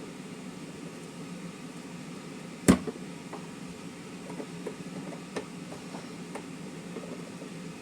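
A screwdriver prying a woofer out of a subwoofer cabinet: light clicks and scrapes, with one sharp knock near the start. Under it runs the steady low hum of a room heater.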